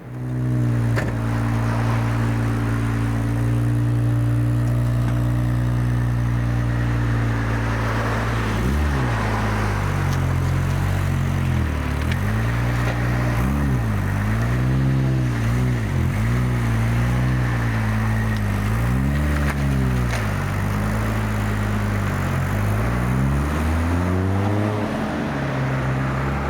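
Toyota A70 Supra engine running at a steady speed, a low even hum. From about nine seconds in, its tone repeatedly sweeps down and back up.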